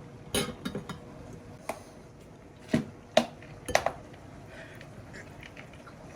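Dishes and utensils being handled: a scattered series of sharp clinks and knocks.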